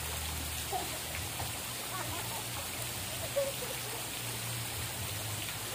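Steady rushing water noise with faint, distant voices, and one brief louder sound a little past halfway.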